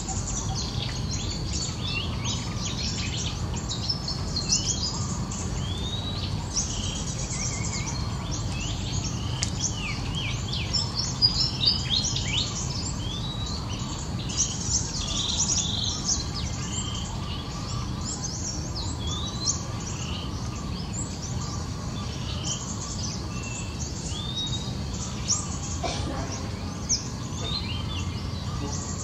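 A chorus of small birds chirping and calling, many short high notes and quick sweeps overlapping, busiest near the middle, over a steady low background rumble.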